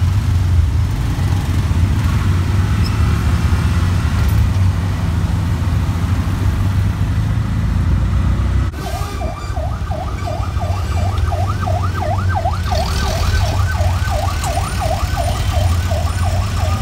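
Steady engine rumble from riding in an auto-rickshaw through traffic. About halfway through a fast yelping siren starts, rising and falling about three times a second.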